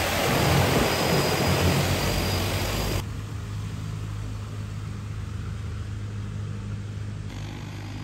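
DJI Agras T40 agricultural drone's rotors spinning at speed close by: a loud rushing whir over a steady low hum, with rotor wash buffeting the microphone. About three seconds in, the sound drops suddenly to a quieter steady drone hum.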